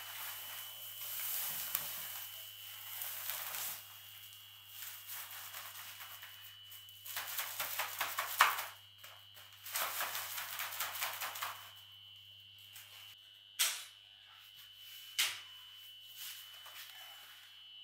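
Flour pouring in bursts from paper sacks into a steel mixer bowl, with the crinkle and rustle of the paper sacks. It is followed by two sharp knocks near the end. A faint steady high whine runs underneath.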